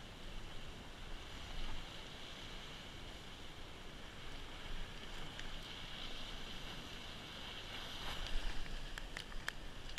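Wind noise on the microphone over a steady hiss of sea surf washing against rocks, with a few light clicks near the end.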